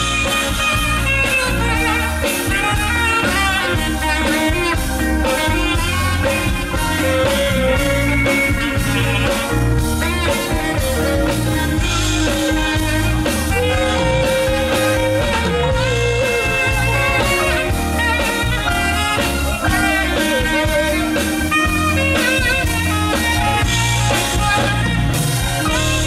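A band playing a pop song at sound check, with a heavy, steady bass and a melody line weaving over it.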